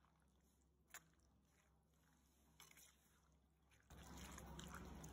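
Near silence with a few faint clicks, then from about four seconds in a soft, wet mixing noise as yogurt is stirred into chopped vegetables in a clay bowl.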